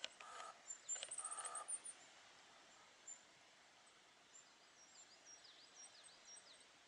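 Firecrest calling: faint, very high, thin notes, with a quick run of high notes about a second in and more short high calls in the second half. Two short, lower-pitched sounds come near the start.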